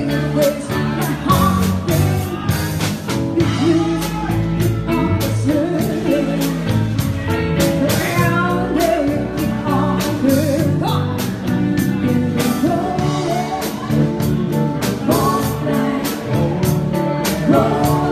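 Live rock band playing: a woman singing lead over electric guitar and a Tama drum kit keeping a steady beat.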